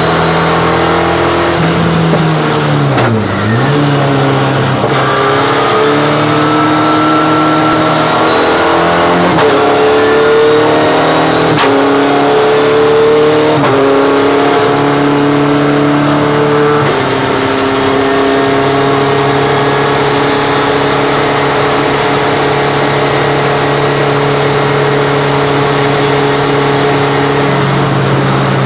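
Race car engine heard from inside the cockpit under full racing load, its pitch climbing and stepping at gear changes. It dips briefly about three seconds in, holds a steady note for about ten seconds in the second half, and drops again near the end.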